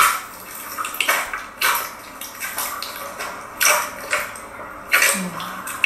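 Hands squeezing and kneading clear blue slime in a glass bowl: wet squelches and crackling pops, the loudest ones coming about a second apart.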